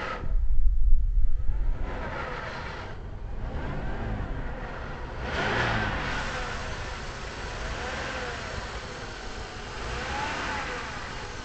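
2002 Pontiac Bonneville's 3.8-litre V6 running with the hood open, with a whine that rises and falls in pitch every couple of seconds. The whine persists after a new serpentine belt, alternator and tensioner, and the owner has been told it might be the water pump bearing. A loud low rumble on the microphone for the first two seconds.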